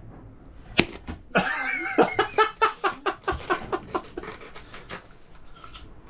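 A person laughing hard in a quick run of short bursts that fades out, after a single sharp click about a second in.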